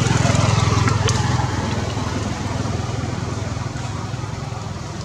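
An engine running steadily with a low hum, a little louder in the first second or so and then easing slightly.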